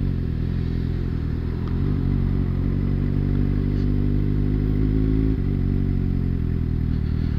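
Motorcycle engine running steadily at low revs while riding slowly in traffic, its note shifting slightly about five seconds in.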